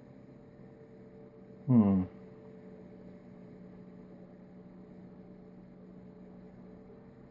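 Steady low electrical hum, with a short falling vocal 'hmm' about two seconds in.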